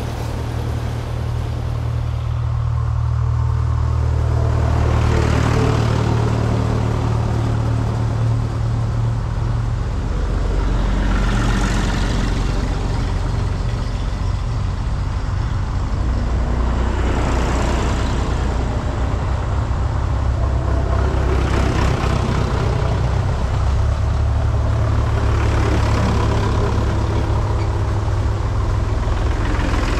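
Vintage tractors driving past one after another, their engines running with a steady low drone. The sound swells and fades several times as each tractor passes.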